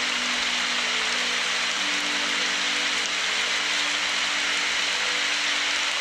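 Steady rain falling as an even, unbroken hiss. Underneath are faint long held notes of soft background music, shifting pitch about two seconds in.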